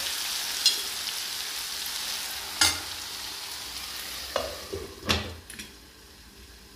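Sliced onions, tomatoes and green chillies sizzling as they fry in a pan, with a few sharp knocks of a steel spoon against the pan. About five seconds in, a glass lid is set on with a clink and the sizzling turns quieter and muffled.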